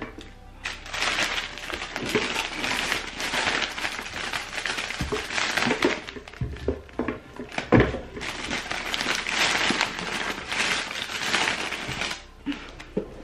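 Crinkling and rustling of packaging and a paper gift bag as items are shifted around inside it, with a few dull knocks about halfway through.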